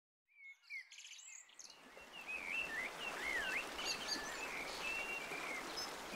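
Outdoor ambience of birds singing, with a soft background hiss, fading in from silence over the first two seconds. It holds a series of short whistled calls that rise and fall in pitch.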